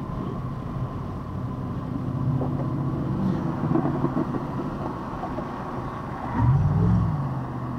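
Road and engine noise heard from inside a moving vehicle's cabin, carrying a low engine note. About six seconds in, an engine note swells, rising and then falling in pitch, and this is the loudest moment.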